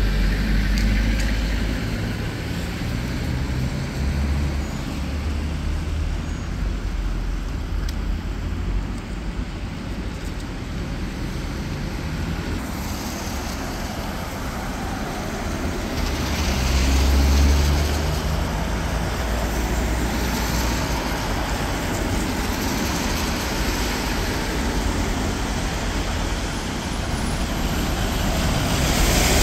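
Road traffic passing on a wet road: car engines running and tyres hissing on the wet surface, swelling louder as vehicles go by about halfway through. Near the end a double-decker bus draws close and the sound grows louder.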